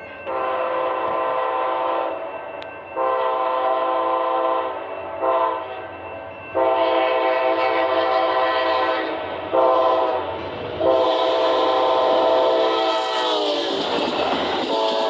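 Amtrak P42DC diesel locomotive's chorded air horn sounding six blasts: long, long, short, long (the grade-crossing pattern), then a short one and a final long one whose pitch sags as the locomotive passes. The noise of the train rolling by follows, about two seconds before the end.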